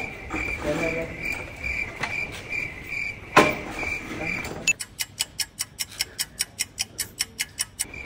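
Cricket chirping, a high pulsing chirp about three times a second, broken by one sharp hit about three and a half seconds in. Over the last three seconds it gives way to a run of rapid, even clicks, about five a second.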